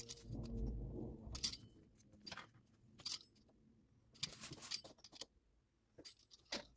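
Pizza-cutter wheel rolling through puff pastry on parchment over a wooden table in several short strokes with pauses between, with metal bangles on the cutting wrist clinking.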